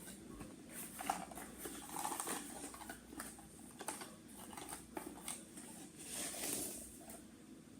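A small box and its packaging being opened by hand: irregular rustling and crinkling with many small clicks and taps.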